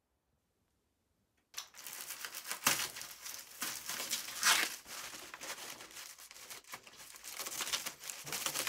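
Bubble wrap and plastic packing film crinkling and tearing as it is pulled and cut off a chair's frame, starting about a second and a half in and going on without a break.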